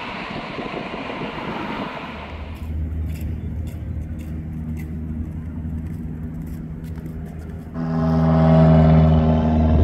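Aircraft engine noise around the airport, cut together in three parts. It starts as a broad rushing noise, changes suddenly at about two and a half seconds to a low hum with scattered clicks, and near the end to a louder steady hum with several held tones.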